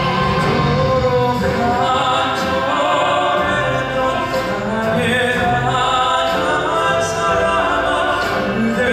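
Male classical-crossover voices singing in an operatic style, with a Korean traditional (gugak) orchestra accompanying.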